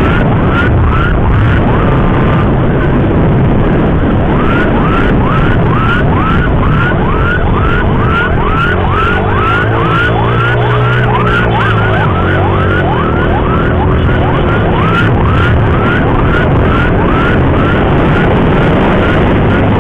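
Electronic emergency siren on a yelp setting, short rising chirps repeating quickly about two or three times a second, over the steady rumble of traffic and wind on the move. A lower, wavering tone overlaps it for a few seconds in the middle.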